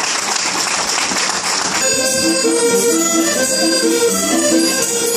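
Applause, then about two seconds in an accordion starts a Portuguese folk tune for a chula dance, a lively melody of held notes.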